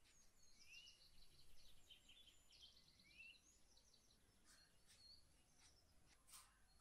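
Near silence with faint birdsong: a few short rising chirps and quick trills, mostly in the first half, then a few faint ticks.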